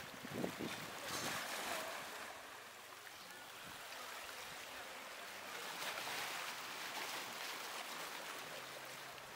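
Small waves washing onto a beach, the hiss of surf swelling about a second in and again past the middle.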